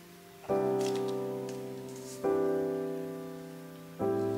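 Soft background piano music: a chord struck about every two seconds, three in all, each left ringing and fading away.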